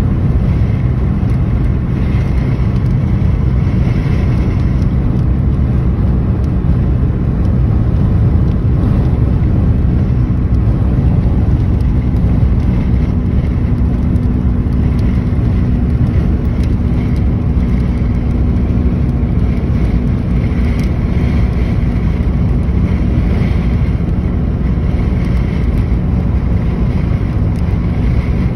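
Steady road noise of a car driving at highway speed, heard from inside the cabin: a low rumble of tyres and engine, with a faint steady hum in the middle of it.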